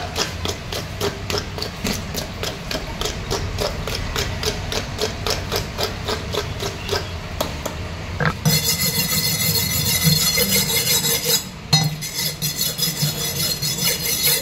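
Scales being scraped off a live snakehead fish on a wooden chopping block: quick rhythmic scraping strokes, about four or five a second. About eight seconds in it turns into a faster, harsher continuous rasping.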